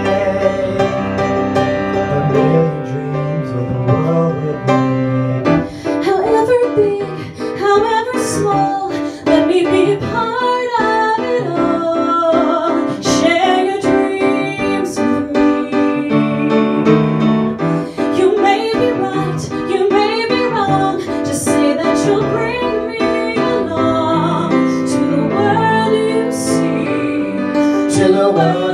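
A woman and a man singing a musical-theatre ballad into handheld microphones over instrumental accompaniment, the woman leading and both singing together near the end.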